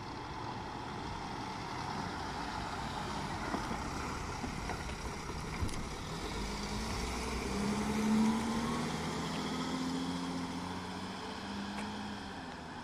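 Mercedes-Benz Sprinter ambulance van driving past at low speed and pulling away. Its engine and tyre noise are loudest about eight seconds in, then fade. No siren sounds: it is running on flashing lights only.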